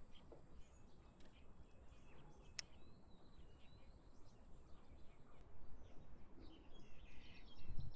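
Faint lakeside outdoor ambience: small birds chirping on and off over a low rumble, with a single sharp click about two and a half seconds in.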